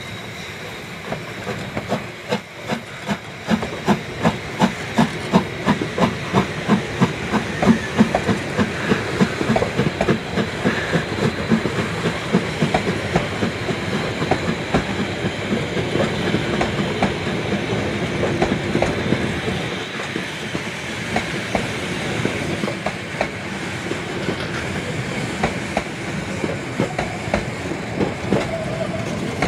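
A metre-gauge steam train, a 2-10-2 tank locomotive with its coaches, rolling slowly past with a regular clacking of wheels, about two a second, that fades after about twenty seconds.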